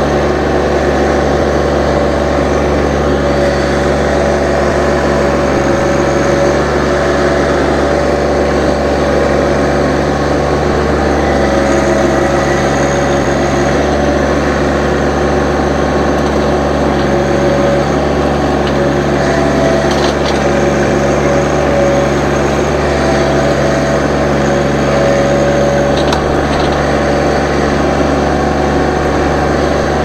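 John Deere 1025R compact tractor's three-cylinder diesel running steadily while its front loader and grapple handle a log.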